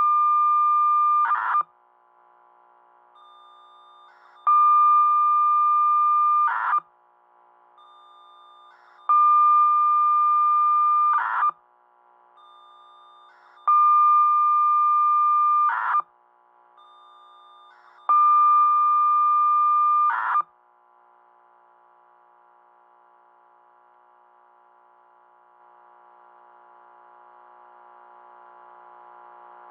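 FSK radio polling transmissions for a siren control system, heard through a scanner: a steady high data tone about two seconds long, each ending in a short noisy burst, repeated about every four and a half seconds, five times. Then only a faint hum that slowly grows louder.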